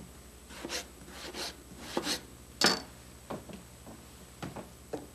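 Knife slicing a tomato on a wooden cutting board: about eight short cuts and knocks of the blade on the board at irregular intervals, the loudest near the middle.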